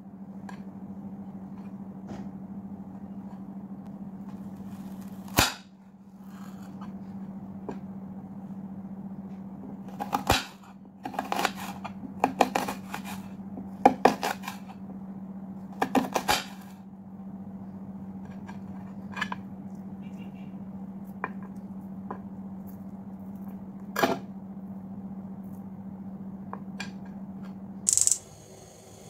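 Kitchen knife cutting a peeled onion on a ceramic plate: a series of sharp, irregular knocks and clicks as the blade hits the plate, over a steady low hum. Near the end the hum stops and a short hiss gives way to the steady hiss of a gas stove burner.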